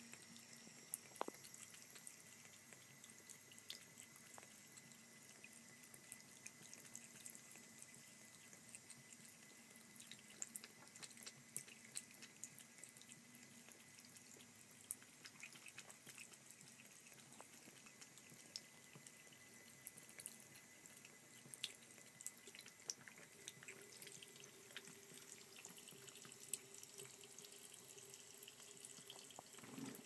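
Faint trickle of a thin stream of water from a bathroom faucet into the sink, with many small drips and ticks scattered through it as a cat laps at the stream.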